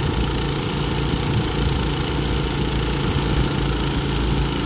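A small engine running steadily at an even, unchanging pitch.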